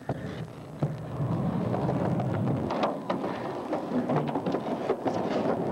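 Skateboard wheels rolling on the concrete of an empty swimming pool: a steady rumble that grows louder about a second in, with a few sharp clicks and knocks through it.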